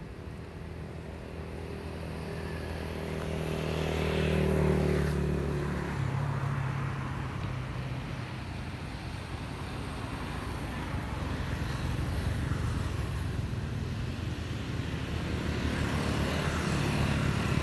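An engine running steadily, growing louder to a peak about five seconds in, then fading, and swelling again near the end.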